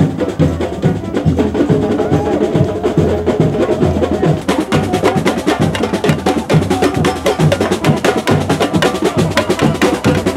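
Samba percussion: surdo bass drums beating a steady pulse about twice a second under snare drum and tamborim strokes. About four and a half seconds in, the sound turns brighter, with crisp high strokes.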